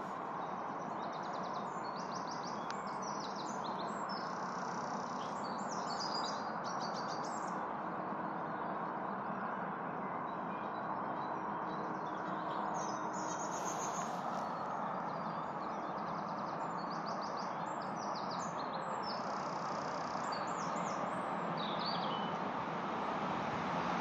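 Songbirds singing at sunrise in short phrases of rapid, repeated high notes, in two bouts with a pause between, over a steady background noise.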